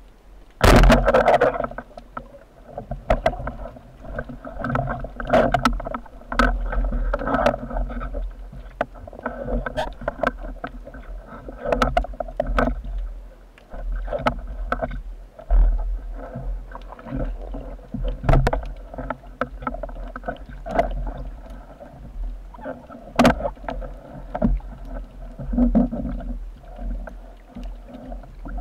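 Underwater recording: a rubber-band speargun fires with a sharp, loud crack about a second in. Then comes a long run of knocks and clicks over rushing water as the speared fish is fought and handled.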